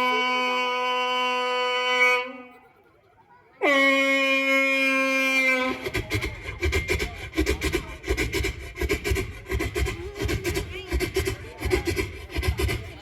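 A man imitating trains with his voice: a long held horn blast breaks off about two seconds in, a second blast follows after a short pause, and from about six seconds in comes a fast rhythmic clatter like wheels running over rail joints. It is his rendering of two trains crossing each other.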